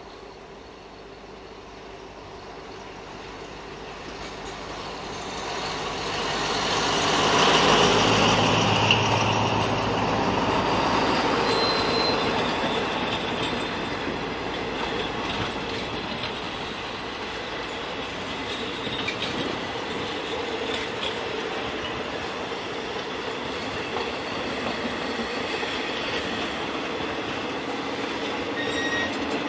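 State Railway of Thailand Rapid Train 109 passing close by. The diesel locomotive grows louder to a peak about eight seconds in, then the passenger coaches roll steadily past on the rails, with a few brief high squeals.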